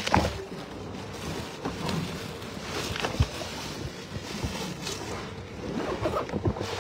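Steady rumbling background noise with a faint hum, broken by a few knocks from the phone being handled, the loudest right at the start and another about three seconds in.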